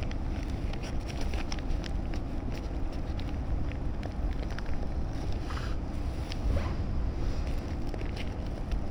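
Wind buffeting the microphone: a steady low rumble, with scattered small clicks and rustles over it.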